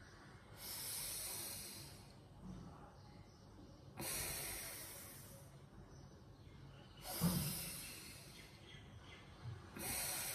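A woman breathing in time with a yoga shoulder exercise: four audible breaths about three seconds apart, the third the loudest. She breathes out as the shoulders rise and in as they come down.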